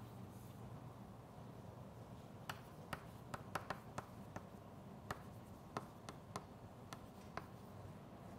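Chalk writing on a chalkboard: a run of faint, sharp, irregular taps as each stroke hits the board. The taps are few at first and come quickly from about two and a half seconds in, over a low steady room hum.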